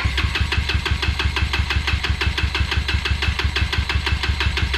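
Honda Fusion scooter's single-cylinder engine turning with a rapid, even pulsing beat of about nine beats a second that holds steady throughout.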